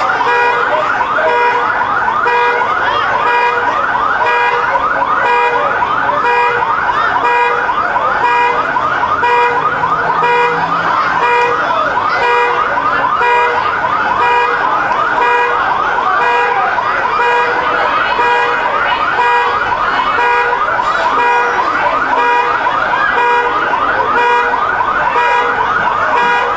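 Police siren on a fast yelp, rising sweeps repeating several times a second, with an on-off beeping tone pulsing alongside it.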